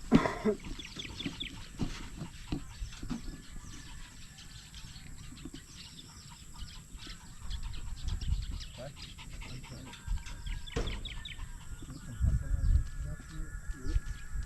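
Chickens clucking, with a loud call right at the start and more short calls scattered throughout, over a low rumble in places.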